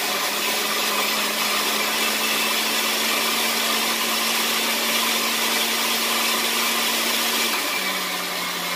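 Countertop blender running steadily, puréeing a green tomatillo and chile salsa, with a steady motor hum under the whirr. The hum drops slightly in pitch about three-quarters of the way through.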